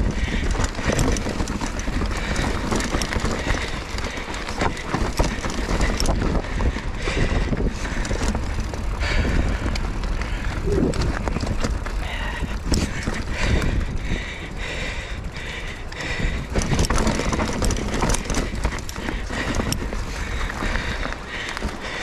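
Mountain bike ridden fast over a rough dirt trail: a steady rumble from the tyres and wind, with frequent clattering knocks and rattles as the bike hits roots and rocks.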